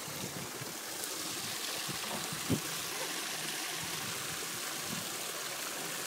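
Steady rush of water running down a water slide and spilling into a pool, with a single short knock about two and a half seconds in.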